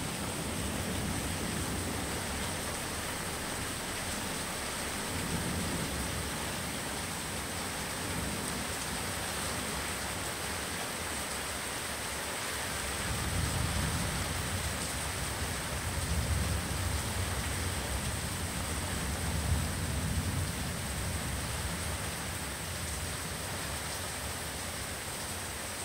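Steady hiss of rain, with low rolling thunder that swells in about halfway through, rumbles for several seconds and fades near the end.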